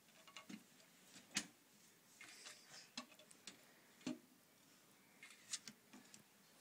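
Scattered light clicks and knocks of plastic toy-kitchen pieces being handled, with one sharper knock about a second and a half in and another about four seconds in.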